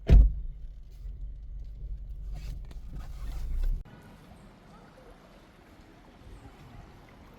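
Low rumble of a moving car heard from inside the cabin, with a thump right at the start. The rumble cuts off abruptly a little under four seconds in, leaving a faint, even outdoor hiss.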